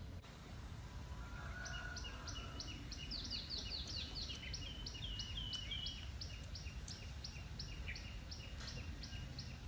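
A bird singing: a long run of short, evenly repeated chirps, several a second, with a quicker run of down-slurred notes near the middle, over steady low background noise.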